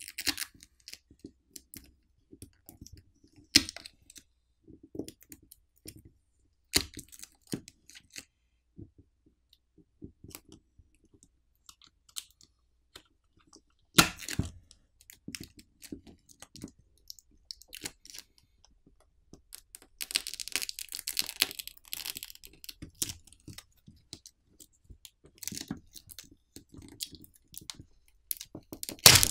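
Hands prying a smartphone battery off its adhesive with a plastic pull pouch: scattered clicks and crackles of plastic and film being handled, with a longer crackling, tearing stretch about twenty seconds in as the adhesive gives.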